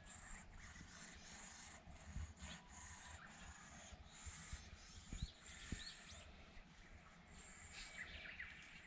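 Near silence: faint outdoor room tone with a few faint high chirps and soft low thumps.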